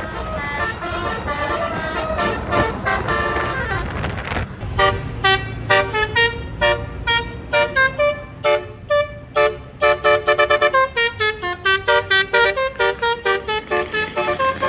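Tourist bus's Basuri telolet horn, a set of roof-mounted air trumpets, playing a tune. It begins with long, overlapping notes, then from about five seconds in turns into a quick run of short toots stepping between different pitches.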